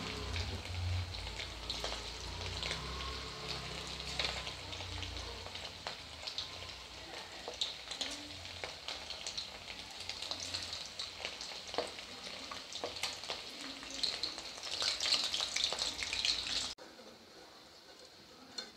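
Maida- and cornflour-coated chicken pieces sizzling and crackling as they deep-fry in hot oil, as more pieces are dropped in and stirred with a slotted spoon. The sizzle cuts off suddenly near the end.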